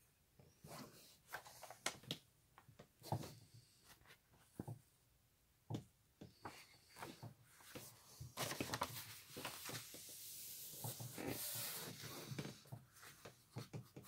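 Hands handling a diamond painting canvas and its protective cover sheet: soft taps and light clicks, then from about eight seconds in a longer stretch of rustling and crinkling as the sheet is peeled back and moved.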